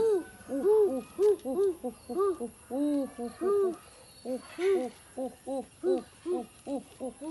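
A quick series of short hooting calls, each note rising and falling in pitch, about three or four a second with brief pauses.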